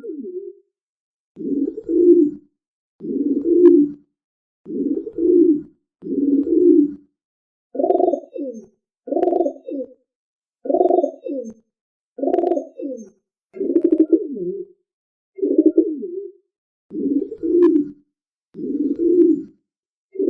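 Dove cooing: a long run of low coos, each under a second long, repeating about every one and a half seconds.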